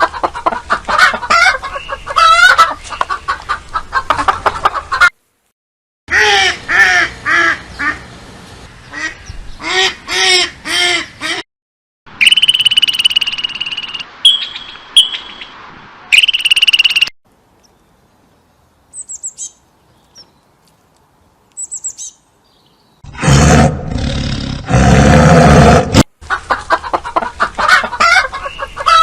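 A string of different animal calls cut one after another with short silent gaps, bird calls among them.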